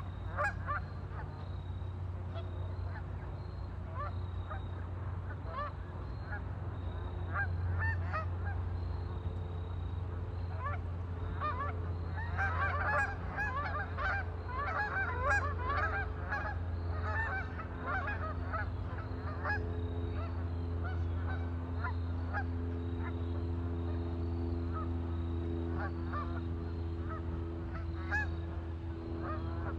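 A flock of waterfowl on a lake calling in short, repeated honks, busiest about halfway through, over a steady low hum.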